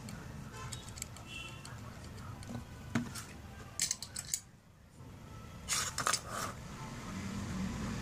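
Scratchy rustles and clicks of a cotton swab and fingers handling a small phone circuit board, in two short clusters about three and six seconds in, over a low steady hum.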